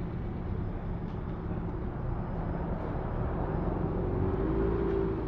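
City street traffic: a steady low rumble of vehicles, with one engine growing louder as it passes about four seconds in.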